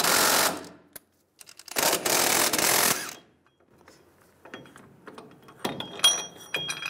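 Ball joint press being released from a freshly pressed-in lower ball joint: its forcing screw is run back out in two loud runs, a short one at the start and a longer one about two seconds in, then sharp ringing metal clinks near the end as the press and its cups shift on the control arm.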